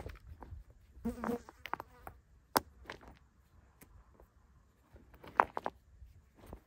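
Large stones knocking against each other as they are set in a ring around a fire pit: a sharp clack at the start, another about two and a half seconds in, and a quick run of knocks about five and a half seconds in. A fly buzzes briefly about a second in.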